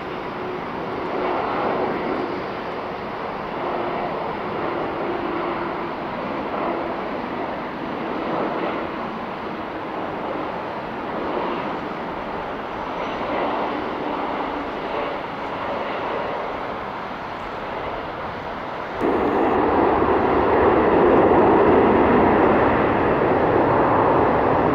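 Jet engine noise from a Boeing 767-400ER's twin General Electric CF6-80C2 turbofans: a steady roar with a faint hum through it as the airliner comes in to land. About nineteen seconds in, the sound jumps suddenly louder, with the airliner on the runway after touchdown and its spoilers raised.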